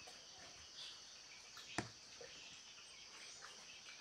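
Near silence: a faint, steady high drone of insects with a few faint bird chirps, and a single sharp click a little under two seconds in.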